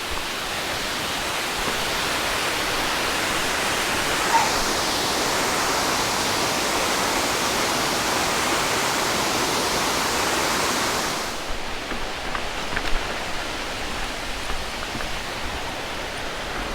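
Waterfall rushing steadily as a full, even roar of falling water. About eleven seconds in it drops abruptly to a quieter, duller rush with a few light knocks.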